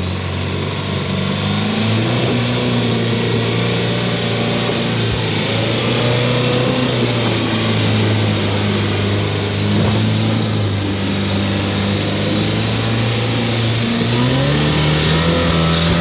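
Off-road vehicle engine running at steady revs as it drives, the pitch stepping up a little about two seconds in and climbing again near the end, over a steady hiss.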